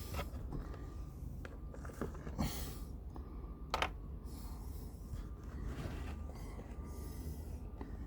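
Scattered light clicks and knocks, with brief rustling, from hands and tools working at the outboard's oil drain, over a steady low hum.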